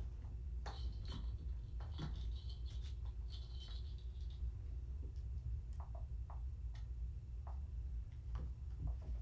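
Kittens playing among their toys: a light rattling for the first few seconds, then scattered soft taps and clicks, over a steady low hum.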